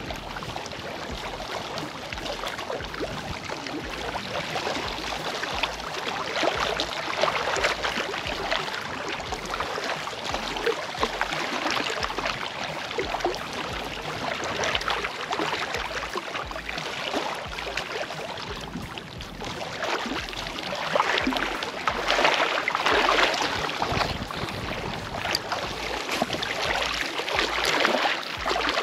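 Small waves lapping and splashing against a rocky shoreline in a continuous wash that swells and eases, growing louder for a few seconds about two-thirds of the way through.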